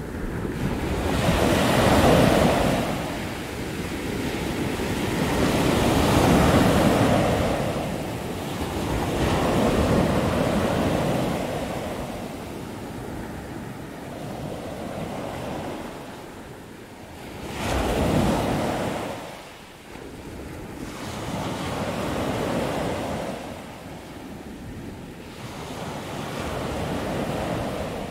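Ocean surf breaking on a sandy beach, swelling and easing every few seconds, with wind noise on the microphone.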